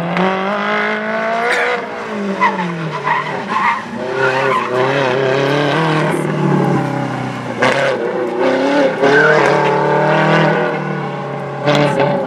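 A sports car's engine revving up and down repeatedly as the car is thrown through a cone course, with its tyres squealing as it slides.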